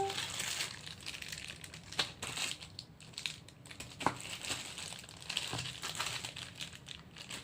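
Plastic packaging crinkling and rustling as items are handled, with a few light clicks and taps, the clearest about two and four seconds in.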